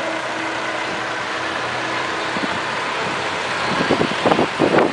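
A motor vehicle's engine running steadily with a low hum, heard from the open trailer being pulled along the road. A few short, louder surges come near the end.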